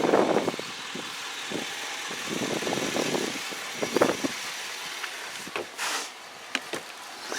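A motor vehicle running at low speed, with scattered knocks and rattles over it.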